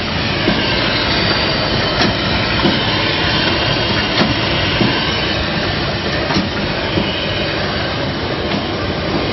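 Premade-pouch rice packaging machine running: a steady mechanical clatter over a low hum, with sharp clicks recurring about every two seconds as the machine cycles.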